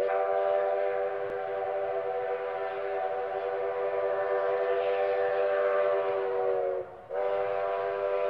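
The steam whistle of McCloud River Railroad locomotive No. 19 sounds one long, steady blast that sags slightly in pitch as it dies away about seven seconds in. After a brief break it blows again.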